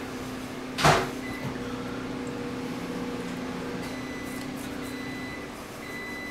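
A steady electrical hum from a running appliance, with one sharp knock about a second in.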